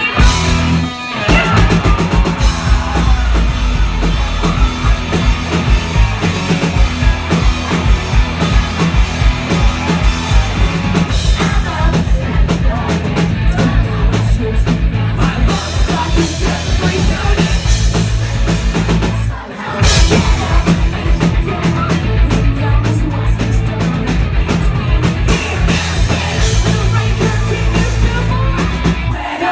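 Live pop-punk band playing loud: electric guitar, drum kit and a woman singing lead, heard from among the crowd. The music drops out briefly about a second in and again about two-thirds of the way through.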